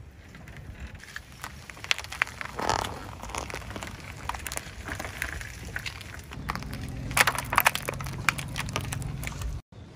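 A car tyre slowly rolls onto and crushes a coiled power cord on gritty concrete, giving scattered crackles and crunches that are densest and loudest about seven to eight seconds in. The car's engine hums low underneath from about six seconds in, and the sound cuts out briefly just before the end.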